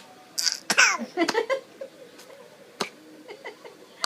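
A baby boy's vocal sounds: a short breathy burst about half a second in, his imitation of a cough, then a few high squeals falling in pitch. A single sharp click comes near the three-second mark.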